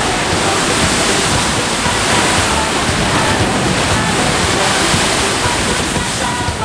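Heavy sea surf surging into a narrow rocky inlet, waves churning and breaking against the cliffs in a loud, steady rush.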